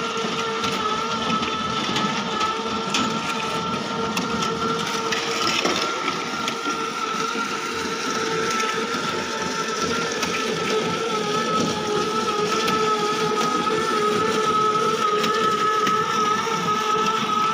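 Motor of a walk-behind cow dung collecting machine running steadily as it is pushed over dung, a constant whine over an even rough noise.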